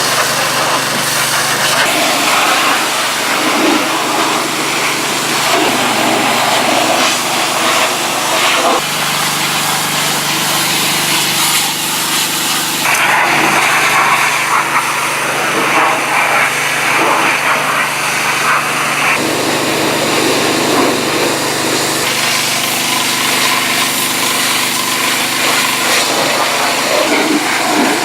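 Small gas-engine pressure washer running steadily under the hiss of its high-pressure spray as a car is washed. The sound changes suddenly a few times.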